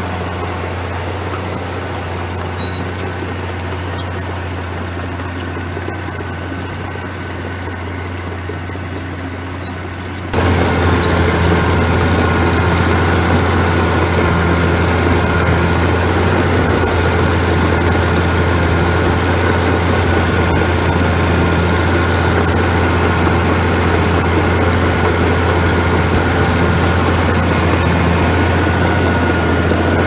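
David Brown 50 crawler's six-cylinder diesel engine running steadily under load while pulling a four-furrow plough. About ten seconds in the sound jumps louder and closer, heard from on the crawler beside its exhaust stack.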